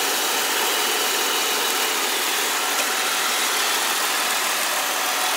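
2003 Ford Explorer XLT's 4.0-liter V6 idling steadily in the open engine bay with the air conditioning on: a smooth, quiet idle with no knocks.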